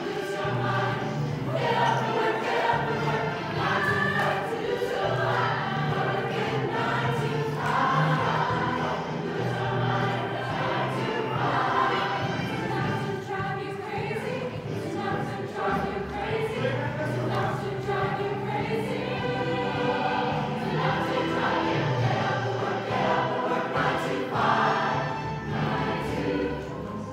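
A group of voices singing together over instrumental backing music, with no pauses.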